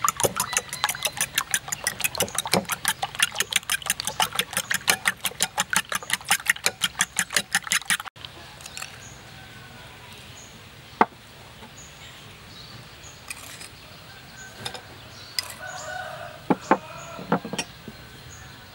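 Duck eggs being beaten with a metal spoon in a bowl: a quick, even clicking of the spoon against the bowl at about five strokes a second, which stops about eight seconds in. After that come a few single clinks of the spoon.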